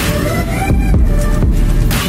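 Background electronic music with a heavy bass and a steady beat.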